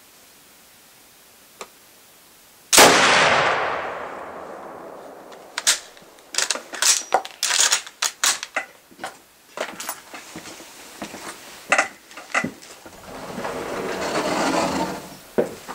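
A single shot from a Mosin-Nagant M91/30 rifle in 7.62x54R, with a long fading echo, about three seconds in. It is followed by a run of quick metallic clicks and clacks as the bolt is worked, and near the end a rush of noise swells and fades.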